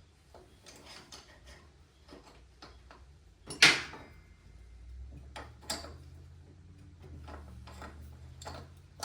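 Small clicks and knocks of motorcycle rear-wheel parts (axle spacers, speedometer drive) being handled, with one loud metallic clank about three and a half seconds in. A low steady hum comes in about halfway through.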